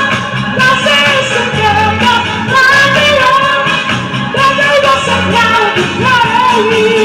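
A woman singing into a microphone over amplified backing music, the voice and accompaniment loud through a PA speaker.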